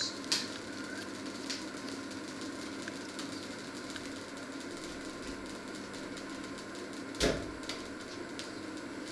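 Kitchen handling noises over a steady low hum: a few light knocks and clatters, and one louder thud about seven seconds in as dough and cookware are handled at the stove.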